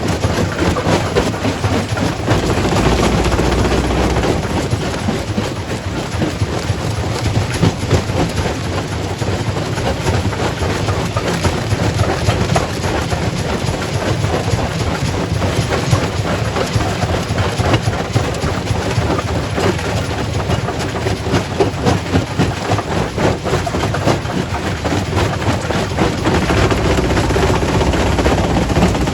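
Quarry primary rock crusher running: a steady heavy rumble with dense, irregular cracking and knocking as rock is broken up.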